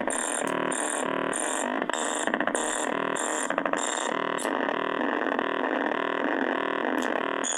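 Fort Processor noise synth circuit playing: a high electronic bleep pulsing about twice a second over a constant buzzy drone, with short rattling stutters about two and three and a half seconds in. The pulsing drops out past the middle while the drone goes on. It is the sound of a kit that now works after its bad solder joints were repaired.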